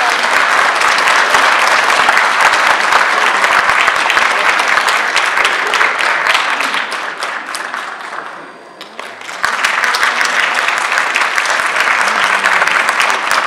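Audience applauding, a dense mass of clapping. It fades about eight seconds in, then breaks out again strongly a second later.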